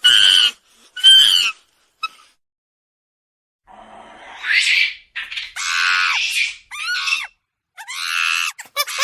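Monkey screaming calls: three short high calls, a pause of about a second and a half, then a run of longer high screams, one rising in pitch, and fast chattering calls near the end.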